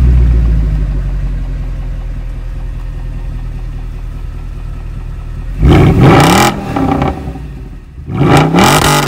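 Mercedes C63 AMG V8 (the naturally aspirated 6.2-litre engine badged 6.3) heard at its quad exhaust tips, settling from its start-up flare into a steady idle. Twice in the second half the throttle is blipped, and each time the revs rise and fall back.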